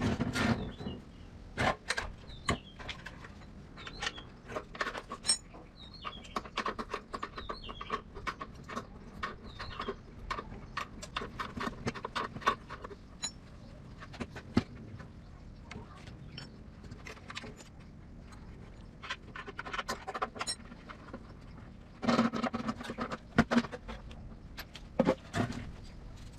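Irregular clinks, taps and knocks of metal tools and parts being handled, with a busier stretch of clattering near the end. Birds chirp faintly in the background.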